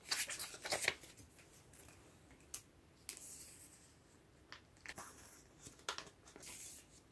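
Faint rustling and light clicks of sleeved photocards being slid into the plastic pockets of a binder page. The handling is busiest in the first second, then thins to a few scattered taps and rustles.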